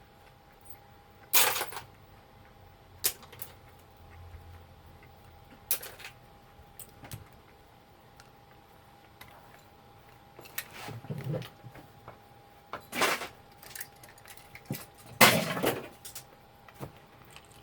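Scattered clacks, knocks and short rattles of plastic and metal parts from a taken-apart label printer being handled and set down. The loudest clatters come about a second and a half in and near the end.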